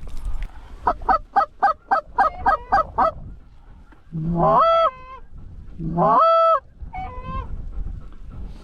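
Canada goose honking: a quick run of about a dozen short honks, then two long drawn-out calls that start low, rise and hold, and a few more honks after them.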